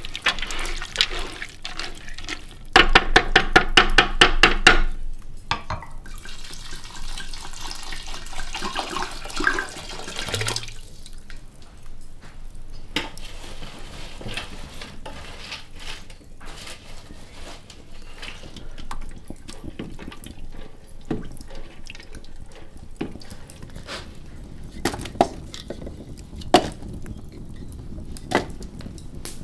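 Kitchen work sounds: water running and splashing, with pots, dishes and utensils clinking and knocking. About three seconds in comes a loud two-second burst of rapid, evenly repeated clatter, then a steady run of water, then scattered light knocks and clicks.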